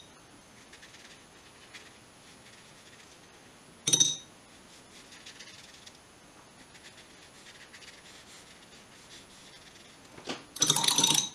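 A paintbrush clinking against its water pot and paint box: one short ringing clink about four seconds in, and a louder run of clinks and rattles near the end. Between them there is faint scratching of the brush on paper.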